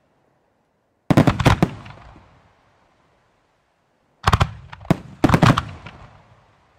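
Aerial fireworks bursting in quick clusters of sharp bangs: one volley about a second in, then more volleys from about four seconds in, each fading off in a short echo.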